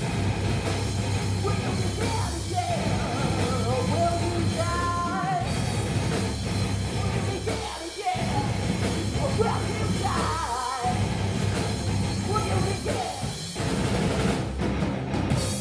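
Live rock band playing: a woman singing, with shouts, over electric guitars and a drum kit. The band breaks off for a moment three times.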